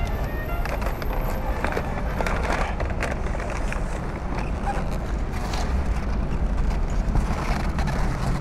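Paper takeaway bags rustling as they are packed into an insulated delivery box, with a few clicks and knocks as the box lid is pushed shut, over a steady low rumble.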